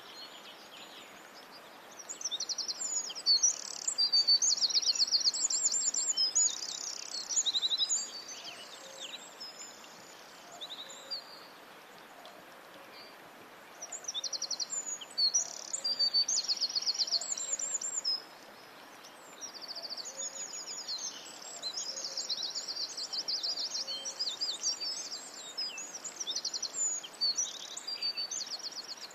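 Songbirds singing in rapid, high-pitched trills and chirps, in three bouts with short gaps between, over a faint steady hiss.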